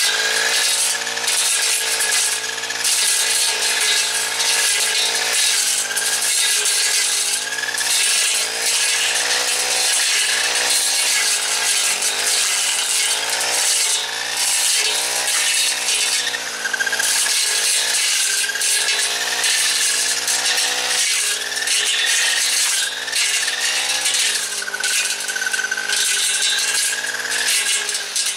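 Four-stroke trimmer engine, a knockoff of the Honda GX50, running hard on a brush-cutter blade, its pitch rising and falling with the throttle as the blade cuts through blackberry brambles.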